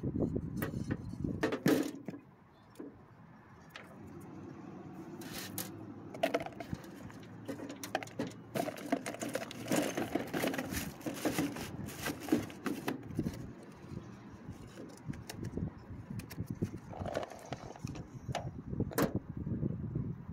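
Irregular clicks, clinks and short rattles from handling a metal evaporator fan shroud and its motor wiring, over a steady low hum from about four seconds in.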